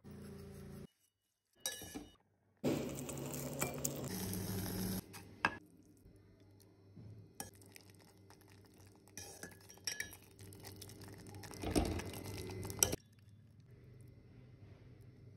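A metal ladle stirring and scraping a thick dal-and-jaggery mixture in a brass pot, with sharp clinks of metal on metal. The sound comes in short pieces that cut in and out abruptly; the longest and loudest stretch is a few seconds in.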